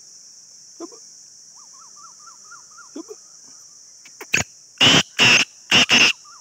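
Black francolin calling: four loud, rough notes in two quick pairs about five seconds in, over a steady high insect drone and faint chirps of other birds.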